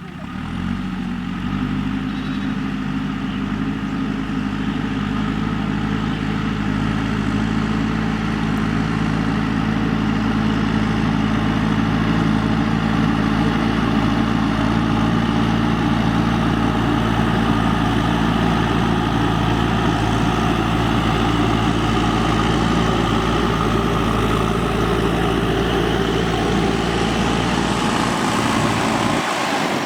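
JCB 3DX backhoe loader's diesel engine running at a steady speed, its note holding even throughout, with a brief break near the end.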